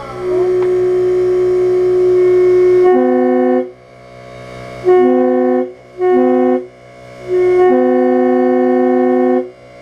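Homemade compressed-air train horn modelled on a Leslie S3L three-chime horn, blown in separate blasts. First one long blast on mostly a single note, then four blasts of the full chord: three short ones and a final long one.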